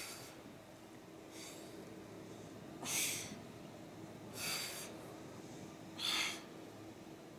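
A woman's short, forceful exhales, one with each ab crunch, about every one and a half seconds.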